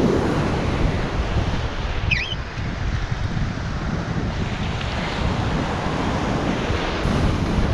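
Ocean surf breaking on the beach, a steady rushing that swells and eases, with wind buffeting the microphone. A brief, faint high call wavers about two seconds in.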